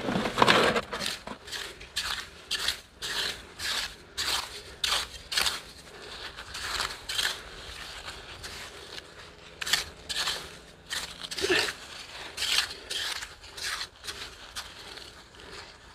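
Small metal hand rake scraping and chopping into wet, gritty tidal-flat sand while digging for Manila clams: a quick crunching stroke about every second, repeated unevenly.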